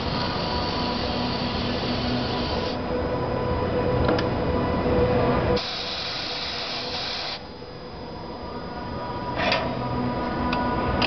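Corghi Artiglio 50 tyre changer working, with a low mechanical rumble and hum. Compressed air hisses for about three seconds, and again in a shorter burst from about five and a half seconds in as the wheel is set down on the turntable. A few sharp clicks come near the end.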